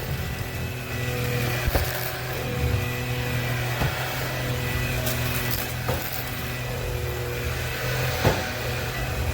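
Cordless stick vacuum running with a steady motor hum whose pitch shifts slightly as it works, with a few light knocks as the floor head bumps.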